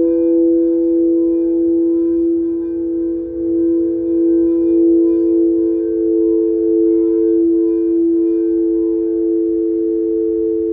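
Several crystal singing bowls are played around the rim with mallets, sounding sustained ringing tones together that swell and waver. Another bowl's tone joins about a second in, and a lower one comes in near the end.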